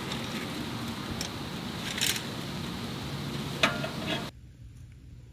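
Wood fire crackling: a steady hiss with sharp pops every second or so. It cuts off suddenly about four seconds in.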